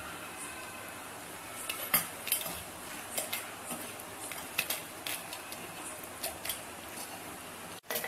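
Fried small onions, garlic and dried red chillies tipped from a pan into a stainless steel mixer-grinder jar: scattered light clinks and taps as the pieces land on the steel, over a low steady hiss.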